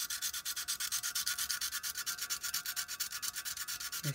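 Coarse sandpaper rubbed by hand in quick back-and-forth strokes, several a second, over the painted body of an old clockwork O gauge locomotive, stripping off the paint.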